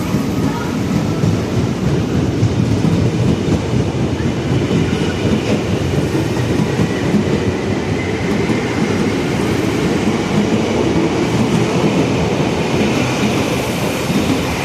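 Tokyu 8500-series electric train running on the track: a steady rumble of wheels on the rails, with no horn.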